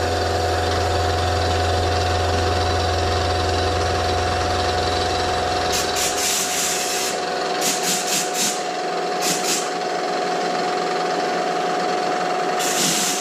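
Bridgeport EZ Trax CNC mill running, its 3/4-inch four-flute end mill circle-interpolating a combustion chamber in an aluminium VW cylinder head, with a steady whine and a low hum that stops about six seconds in. Short hissing blasts of compressed air come four times in the second half.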